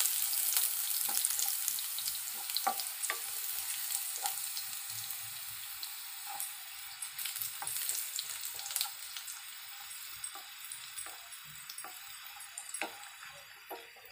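Sliced garlic frying in hot oil in a non-stick kadhai with dried red chillies and panch phoron, sizzling steadily as a wooden spatula stirs it, with scattered small clicks. The sizzle slowly grows quieter.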